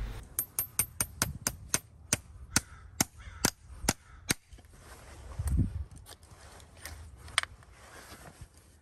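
Farrier's hammer tapping horseshoe nails through a steel shoe into a horse's hoof: a quick run of about a dozen sharp metallic taps, about three a second, then a duller knock and a few scattered taps.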